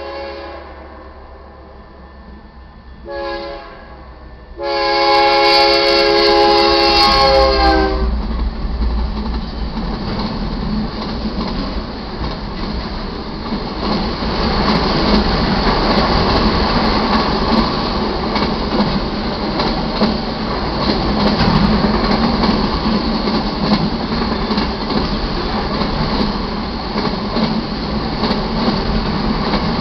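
Air horn of BNSF GE C44-9W diesel locomotive 4336 blowing for a grade crossing. A long blast ends just after the start, a short blast comes about three seconds in, and a loud long blast runs from about five to eight seconds, the close of the crossing signal pattern. Then the freight train's auto-rack cars roll steadily past, wheels rumbling on the rails.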